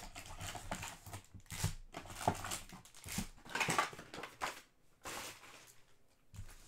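Trading-card hobby box and foil card packs being handled, rustling and crinkling in short bursts, busy for the first four seconds or so and then quieter.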